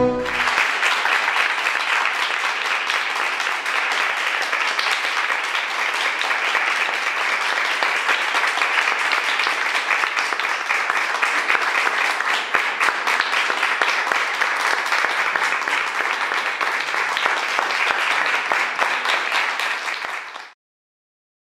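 Audience applauding, many hands clapping steadily; the applause cuts off suddenly near the end.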